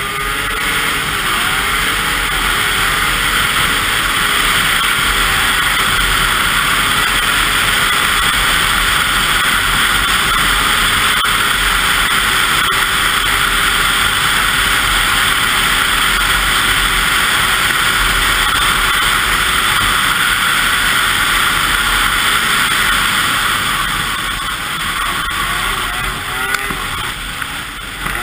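2002 Yamaha SX Viper 700 snowmobile's three-cylinder two-stroke engine running at trail speed, the pitch holding fairly steady. Over the last few seconds it eases off and the pitch rises and falls as the throttle is worked.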